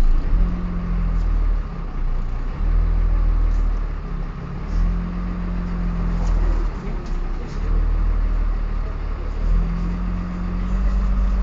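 Dennis Dart single-deck bus running, its engine note rising and falling every few seconds, with a steady high gear whine throughout.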